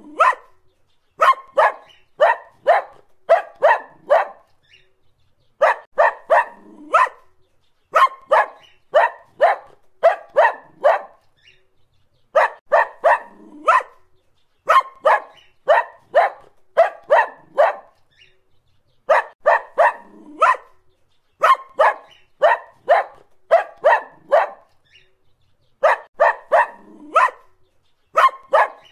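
A dog barking in quick runs of four to six short, sharp yaps, a new run every two seconds or so, over and over.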